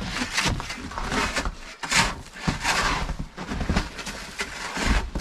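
Snow being cleared by hand: a run of irregular rough scraping and brushing strokes.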